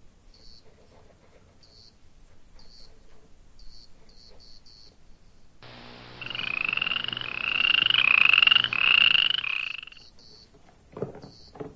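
Horned frog (Pacman frog) calling: a run of about five rising calls, one after another, starting about halfway through and lasting some four seconds.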